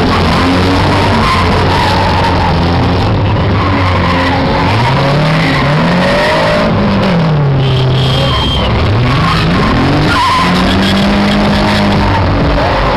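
Car engine revving up and down while its tyres skid as a sedan drifts on asphalt; the engine note rises and falls several times in the middle.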